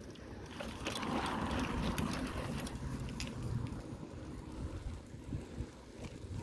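Wind buffeting the microphone and a low, uneven rumble of movement along the road. A swell of hiss with a scatter of sharp clicks rises about a second in and fades after about three seconds.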